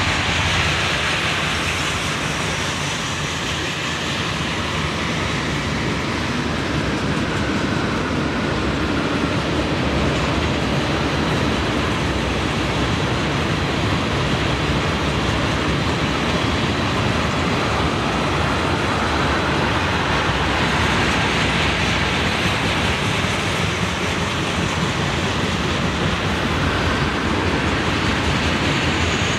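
Freight train of tank cars rolling past close by, its steel wheels running on the rails in a steady rush of noise.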